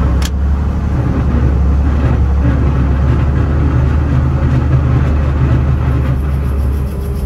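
Steady, loud, low engine rumble of a running vehicle.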